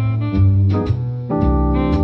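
Instrumental background music with a steady beat and a strong bass line under changing melody notes.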